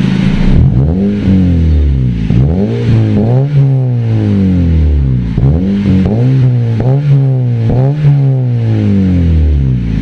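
Honda Civic FD exhaust through an axle-back system with the resonator deleted and a burnt-tip muffler, free-revved in a series of quick throttle blips, the pitch rising and falling with each rev.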